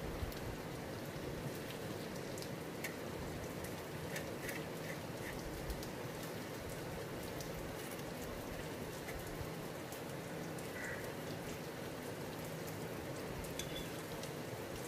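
Steady faint hiss with a few soft clicks of a steel spoon dipping into a steel bowl of sugar syrup as the syrup is spooned over a crisp ghewar.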